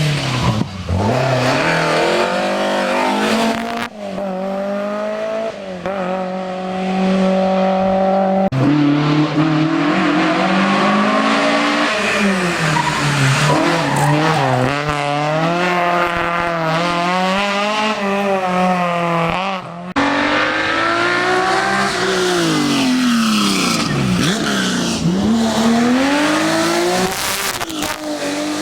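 Historic rally car engines at full throttle on a special stage, revving up and dropping back through gear changes and braking. The engine note breaks off and changes abruptly several times, as if from one car to the next.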